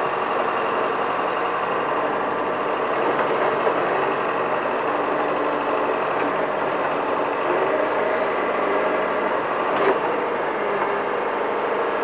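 John Deere 410 backhoe loader's engine running steadily while the backhoe digs, heard from the operator's seat in the cab. A single click comes about ten seconds in.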